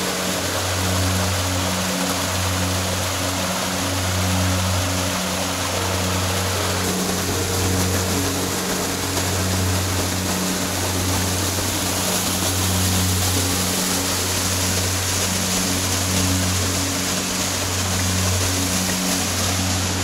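Steady rush of water from a small mountain waterfall and stream, under background music with a low, evenly pulsing synth line.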